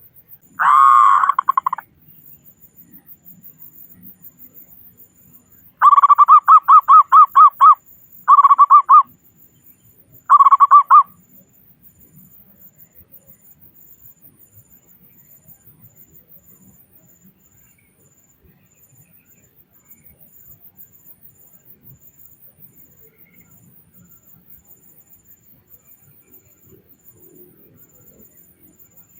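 Zebra dove (perkutut) cooing: a short call about a second in, then a phrase of quick rippling coos starting about six seconds in, followed by two shorter phrases. The bird is quiet for the second half.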